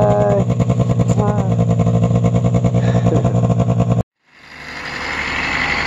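Arctic Cat snowmobile's 580 EFI two-stroke twin idling steadily, cut off abruptly about four seconds in. A different, rougher engine sound then swells up near the end.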